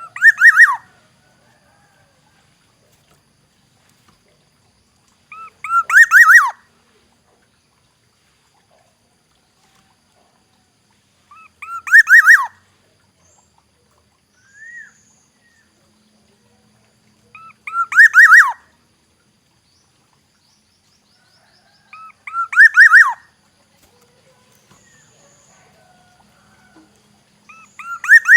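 Black-naped oriole calling: a short, loud, fluty phrase of sliding whistled notes, about a second long and repeated about every five to six seconds, six times in all, with a faint single note in one of the gaps.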